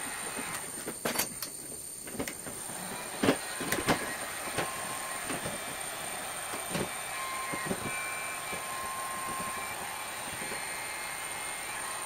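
Handheld electric heat gun running steadily on its low setting, an even airy hiss with a thin high whine, as it heats polyethylene tubing. A few sharp clicks and knocks from handling come in the first four seconds.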